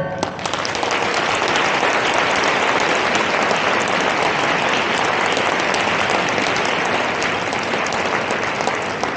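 Audience applauding, beginning just as the orchestra's final note stops and easing slightly near the end.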